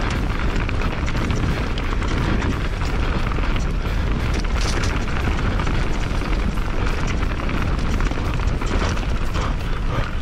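YT Jeffsy mountain bike running fast down a rough enduro trail, heard from an action camera on the rider or bike: a steady heavy rumble of wind and ground noise on the microphone, with constant rattling and knocking from tyres, chain and frame over roots and rocks.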